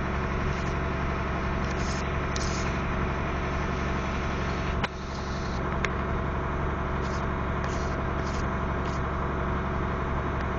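Heavy vehicle engine running steadily, with a sharp click about halfway through and another a second later.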